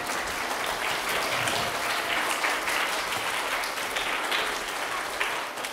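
An audience of children applauding: steady clapping of many hands.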